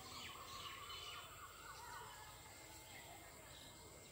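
Faint rural background hiss with scattered bird chirps and calls, including a longer wavering call in the first second or so.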